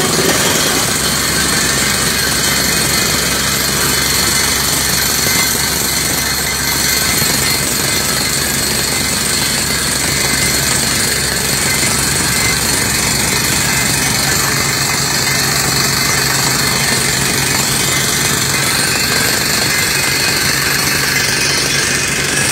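Truck-mounted water well drilling rig drilling with a down-the-hole air hammer: steady, loud machine noise of the rig's engine and compressor together with the hammer and the air blowing dust and cuttings out of the borehole.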